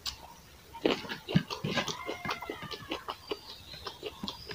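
Close-up eating sounds: a man chewing rice and pork with his mouth open, with irregular wet smacks and clicks of the lips and tongue.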